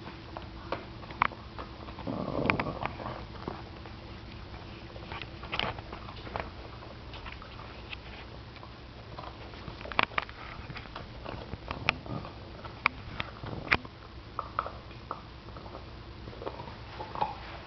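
Boston terrier gnawing on a chew bone: scattered sharp clicks and cracks of teeth on the bone, the loudest ones bunched in the second half. A brief rough, noisy sound about two seconds in.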